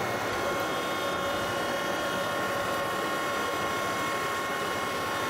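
Heavy machinery running steadily under a constant engine drone, with a steady high whine over it.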